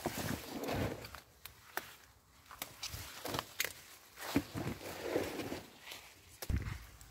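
Footsteps through grass and the rustle of pepper plants as a plastic bucket is carried along the row, with scattered light clicks and knocks.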